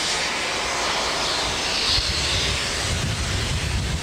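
Diesel locomotive engine running in a steady roar, blowing heavy exhaust smoke; its low rumble grows louder about halfway through.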